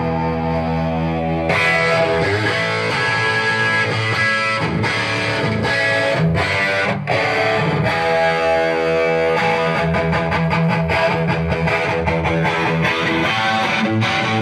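Distorted electric guitar played through a 100-watt valve amplifier. The amp is running on two 6CA7 power tubes, fed 90 volts AC from a variac with the bias at maximum, giving about 18 watts. Chords ring out and sustain with a saturated tone.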